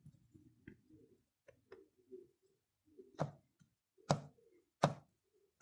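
A few short, light clicks and taps, the sharpest about three, four and five seconds in, from a soldering iron tip touching and tapping the metal terminals of a 3.5 mm headphone jack plug while a wire is soldered on.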